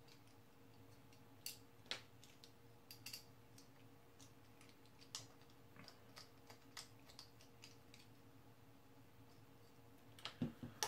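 Faint, scattered clicks and ticks of a precision screwdriver's metal bit working small screws out of the circuit board holder's legs, over a faint steady hum. A few louder knocks come near the end as a leg is set down.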